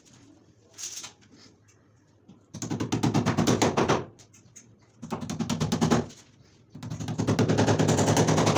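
Power drill in hammer mode boring into the wall in three bursts, a rapid, even rattle of impacts over the motor's hum, the longest near the end.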